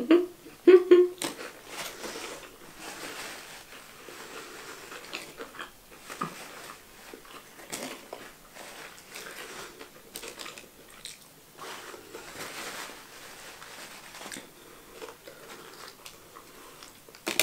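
A person chewing and munching fast food, with soft crackles and rustles of a paper food wrapper and a napkin.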